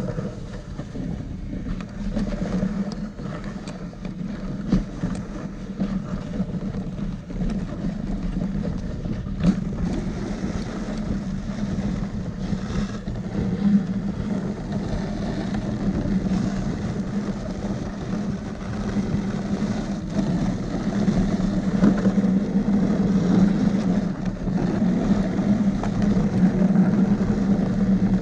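Steady rumbling hiss of a dog-drawn rig running over a packed snow trail, growing louder about two-thirds of the way through.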